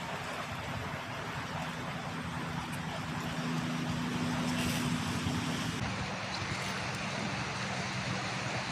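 Small boat engine running steadily, with water and wind noise; its pitch shifts slightly about six seconds in.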